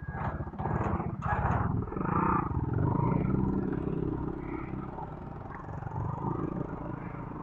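Yamaha Aerox scooter engine running under way, with a steady low drone and a few louder noisy bursts in the first two seconds.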